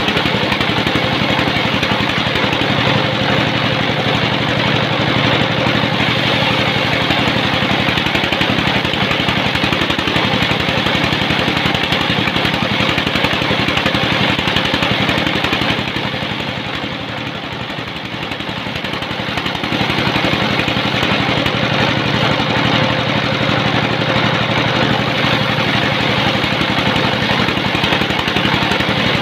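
Sawmill running steadily while sawing a mahogany log, its noise dropping briefly a little past halfway and then coming back to full level.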